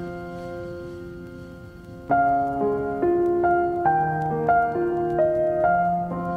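Background piano music: a held chord fades away, then about two seconds in a gentle melody starts, with new notes about twice a second.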